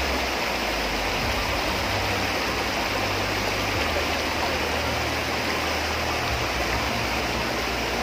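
Small waterfall cascading down a rock face into a pool, a steady rush of falling water.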